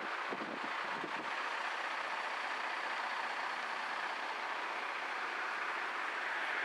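Steady road traffic noise, with a truck running on the road.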